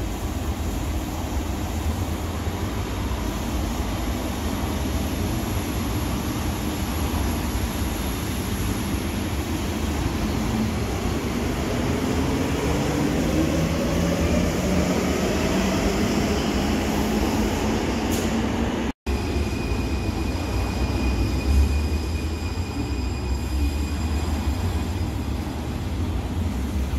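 Munich U-Bahn trains running along an underground platform. First an older Type A train rumbles past while its motor whine rises in pitch. After a brief cut about two-thirds of the way in, a newer train moves past with a steady high whine over a low rumble.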